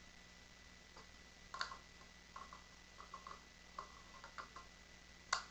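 Faint, scattered clicks and light knocks of hands handling a plastic airsoft bolt-action sniper rifle near its magazine, with a sharper click about a second and a half in and the loudest one near the end.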